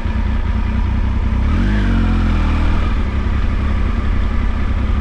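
Motorcycle engine running while riding, with a short rise in revs about a second and a half in before settling again.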